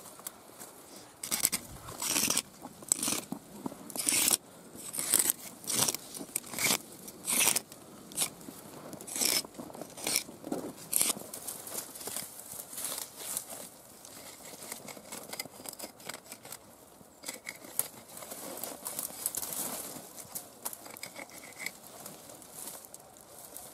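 A freshwater mussel shell sawing through a black raspberry cane: a quick, irregular string of sharp scraping strokes for the first ten seconds or so, then softer rustling among the dry canes.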